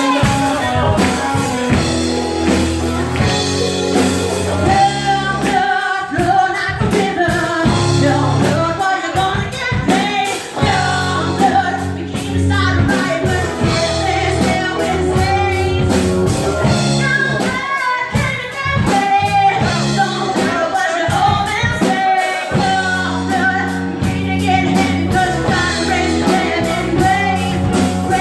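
Rock band playing a song live, with a lead singer over drums, bass and guitar.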